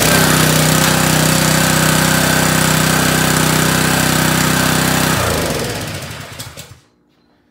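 Yamaha MA190 gas engine on a pressure washer running steadily just after a pull start. About five seconds in, its speed drops and it winds down to a stop.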